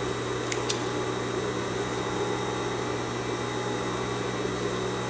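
Steady electric motor hum with a low drone, from an industrial sewing machine's motor left running while not stitching; two faint ticks about half a second in.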